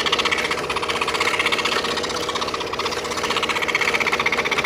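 Scroll saw running, its fine blade stroking rapidly up and down as it cuts interlocking jigsaw puzzle pieces out of a wooden puzzle blank; a steady, fast, even rhythm.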